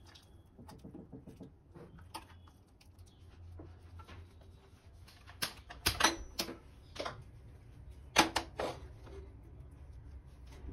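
Hand-held spark gas lighter clicking at a gas stove burner, a quick run of sharp clicks about halfway through, then a louder sharp knock a couple of seconds later.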